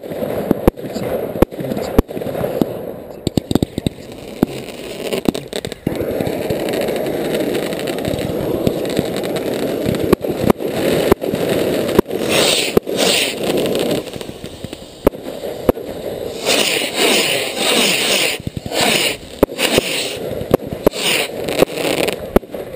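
Fireworks display heard from close to the firing point: a string of sharp bangs from shells launching and bursting. In the second half, rockets fire from a rack with a loud rushing hiss.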